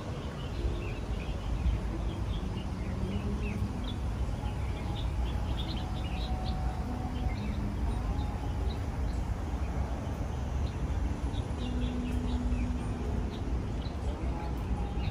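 Small birds chirping in many short, high calls scattered throughout, over a steady low background rumble.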